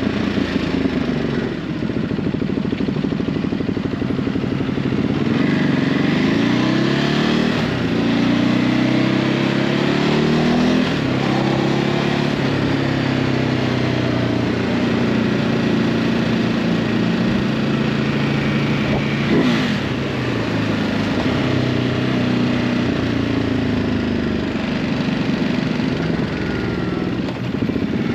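Ducati Hypermotard 950's L-twin engine through its stock exhaust while riding. The pitch climbs and drops back a few times in the first ten seconds or so as it pulls through the gears, then settles into a steady cruise. There is one short sharp click about two-thirds of the way through.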